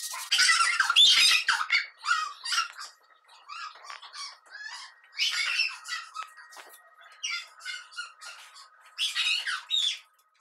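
Cloth rubbing on a window pane and trim, giving irregular high-pitched squeaks and squawks in quick, uneven strokes.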